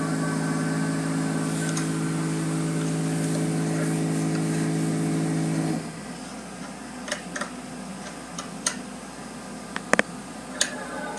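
Car wash machinery running with a steady hum that cuts off suddenly about six seconds in, leaving a quieter wash of noise broken by several sharp clicks.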